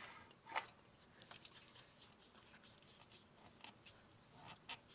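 Faint, irregular scrapes and clicks of a spin-on oil filter being turned by hand onto its threaded mount.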